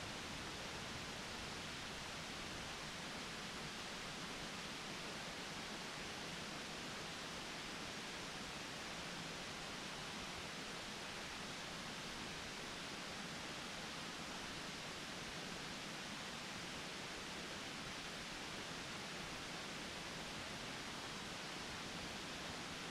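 Steady, even hiss of background noise with no distinct sounds in it.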